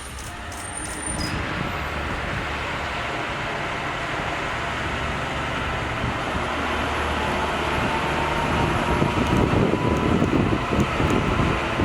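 209 series railway car rolling along the track, its rumble and wheel noise growing louder toward the end, with a faint thin whine over it.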